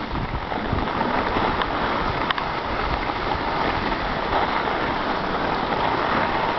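Steady rushing hiss of snowboard and ski edges sliding and scraping over packed snow at speed, mixed with wind buffeting the microphone. There is a light click about two seconds in.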